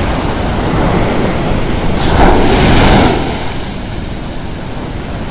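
Surf washing on the shore, with wind on the microphone. A wave surges loudest about two seconds in and eases off a second later.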